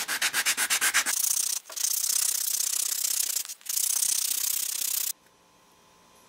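Wooden block cut from a 2x4 rubbed against sandpaper on a hand sanding block: about a second of quick short strokes, then longer steady rubbing with two brief breaks. The rubbing stops abruptly about five seconds in.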